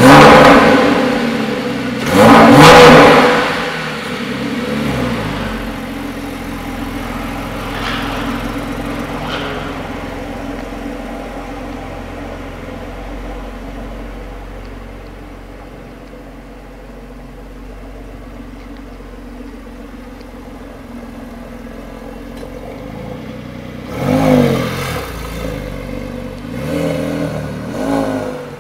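Porsche Carrera 4S flat-six engine blipped hard twice in quick succession, then a few lighter blips before it settles to a steady lower running note. Near the end it is revved up again two or three times.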